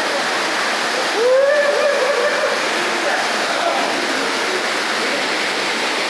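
Waterfall rushing steadily as it pours into a rock plunge pool. A person's voice calls out briefly about a second in.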